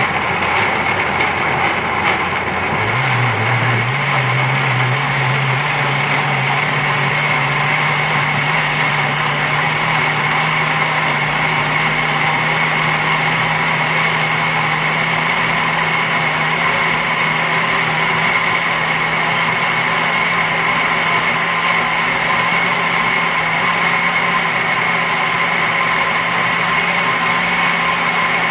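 Countertop blender running steadily, puréeing fresh tomatoes without added water. Its motor hum jumps up in pitch about three seconds in and then climbs slowly as the chunks break down to a smooth purée.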